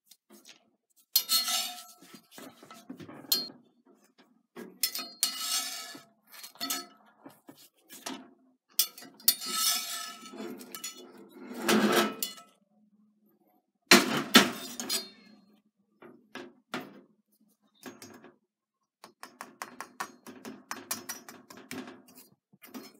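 Cast-iron skillet and metal spatula clattering on a gas stove: scrapes, knocks and clinks come in irregular bursts. The loudest knocks fall around the middle, when the pan is shifted off the burner, and a run of quick light clicks follows near the end.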